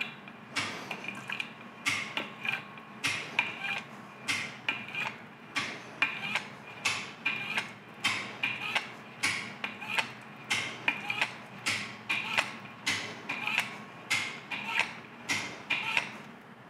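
Lever-action oil gun being pumped over and over, each stroke a sharp click with a short squirt, about two a second, as way oil is forced through the grease fittings of a lathe's power compound to flush out old hardened grease.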